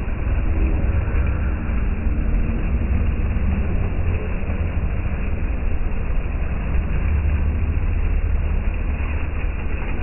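Bell fountain's water sheet splashing steadily into the pond, heard as an even rushing noise over a deep, steady rumble.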